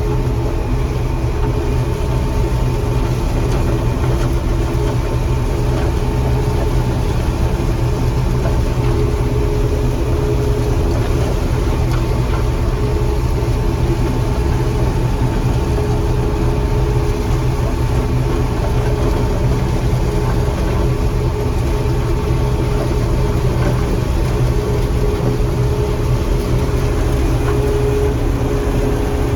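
John Deere 4400 combine running steadily while harvesting corn: engine and threshing machinery giving a constant drone with a few steady whining tones.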